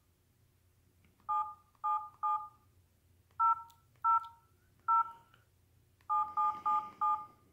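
LG 442BG flip phone's keypad tones as keys are pressed to type a note: about ten short beeps, each a pair of notes sounding together. They come in small groups, the last four in quick succession near the end.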